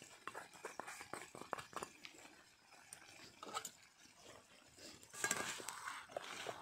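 Faint scattered pops and crackles from the pan over the wood fire. About five seconds in, a spatula starts stirring chicken in a metal karahi, with scraping and knocking.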